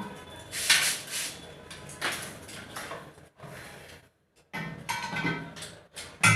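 Metal objects clanking and clinking in a series of sharp knocks, the loudest about a second in and again near the end, with a brief dead gap a little past the middle.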